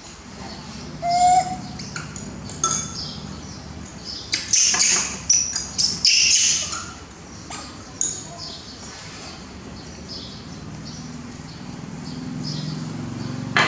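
Baby macaque making repeated short, high-pitched squeaks and coo-like calls while being fed, the shrillest cluster of cries about halfway through. A low hum swells near the end.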